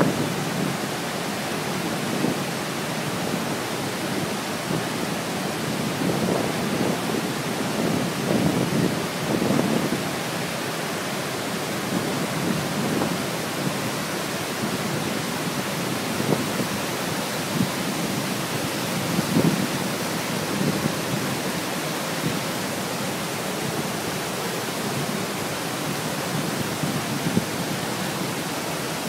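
Rushing floodwater of a storm-swollen creek and waterfall: a steady dense rushing noise with irregular deeper surges, the sound of the falls and creek running high after days of heavy rain.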